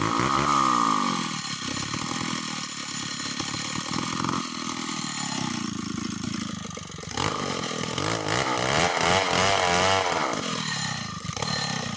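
Chainsaw with a 25-inch bar running at speed as it cuts into a mango trunk. About seven seconds in, the engine pitch starts wavering up and down with the load.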